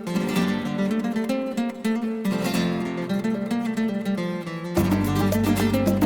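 Background music led by a plucked acoustic guitar; a deep bass comes in about three-quarters of the way through.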